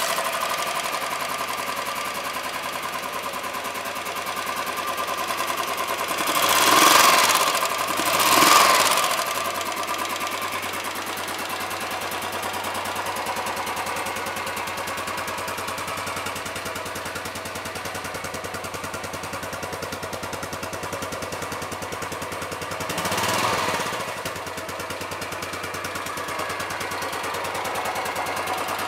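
Royal Enfield Classic 350 BS6's fuel-injected single-cylinder engine idling with a rapid, even beat through its chrome exhaust. It is revved briefly twice in quick succession about a quarter of the way in, and once more past three-quarters of the way through.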